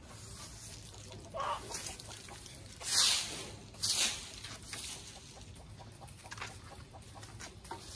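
Chickens clucking softly while foraging, with a few short scraping rustles in dry leaf litter, the loudest about three and four seconds in.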